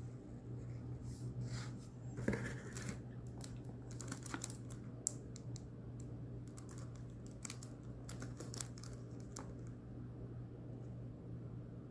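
Light clicks and crinkling from a shrink-wrapped cardboard product box being handled, scattered irregularly over a steady low hum.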